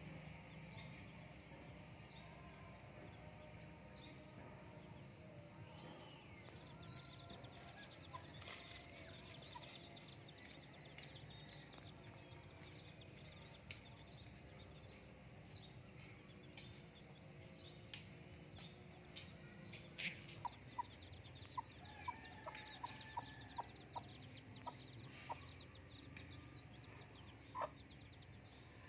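Mother hen clucking softly to her chicks, faint, with a run of short, evenly spaced clucks in the second half.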